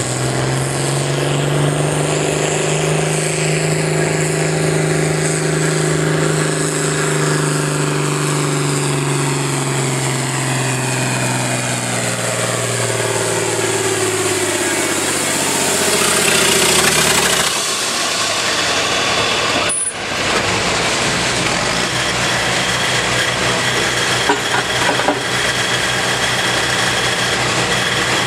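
John Deere pulling tractor's engine running hard under full load as it drags the weight sled, its pitch holding and then sagging as the sled bogs it down, until it cuts off about seventeen seconds in. After that a tractor engine idles.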